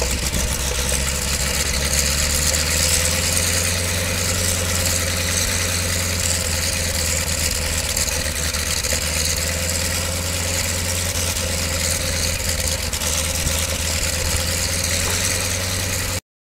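Boeing Stearman biplane's radial engine idling steadily on the ground, a low, even drone that cuts off suddenly near the end.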